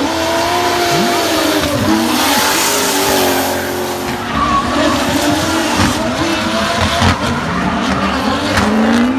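Drift cars in a tandem slide, one a 1JZ-powered BMW E46: engines revving up and down on the throttle over continuous tyre squeal and skidding. A few sharp pops from the anti-lag come in the second half.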